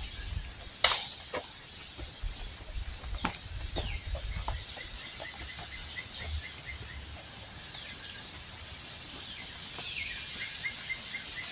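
Outdoor ambience with a bird calling: a run of rapid, evenly spaced chips about five seconds in, and another near the end that begins with a falling note. A sharp click sounds about a second in, over a steady high hiss.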